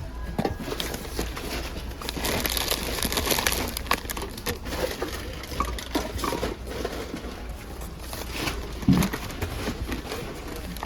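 Supermarket ambience: rustling and crinkling of handled packaging with scattered clicks and knocks, and one louder thump near the end.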